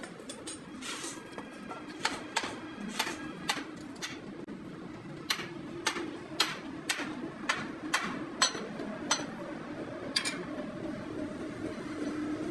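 A series of sharp knocks on metal, about fifteen at irregular spacing and closest together in the middle stretch, over a steady low hum.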